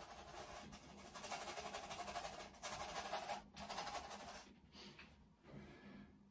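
Paintbrush scrubbing acrylic paint across a canvas: a faint, scratchy brushing that stops about four and a half seconds in.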